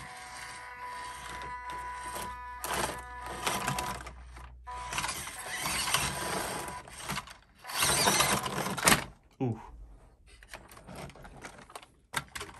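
The small electric motor and gearbox of a WPL C24 1/16-scale RC crawler whine steadily as it drives up a rock obstacle. After about five seconds come louder stretches of scraping and scrabbling as its hard tyres claw for grip on the steep climb.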